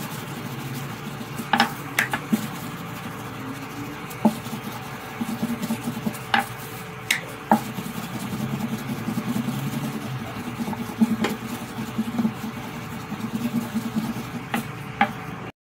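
Wooden rolling pin rolling dough out thin on a marble counter: a steady low rolling rumble broken by occasional sharp clicks and knocks of the pin against the stone. The sound cuts off abruptly near the end.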